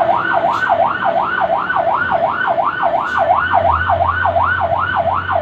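Fire truck's electronic siren on yelp, sweeping up and down rapidly about three times a second. A low steady hum joins about three and a half seconds in.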